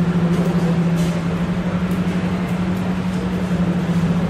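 A loud, steady low hum, unchanging, over a faint background hiss.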